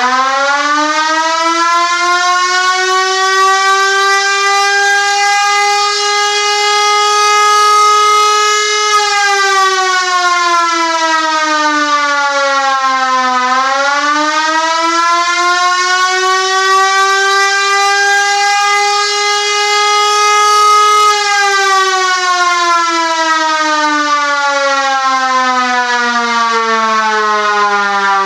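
1920s Sterling Little Giant electric siren with twin 12-port rotors, running on 120 V instead of its rated 240 V, wailing loudly. It finishes climbing to top pitch in the first few seconds and holds there. About a third of the way in it sags in pitch, climbs back, then winds down slowly over the last several seconds.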